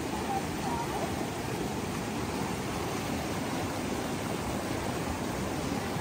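Fast-flowing mountain stream rushing over rocks and through riffles: a steady, even rushing noise.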